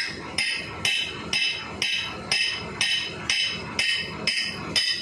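Hammer blows on metal at a steady pace of about two a second, each giving a short metallic ring.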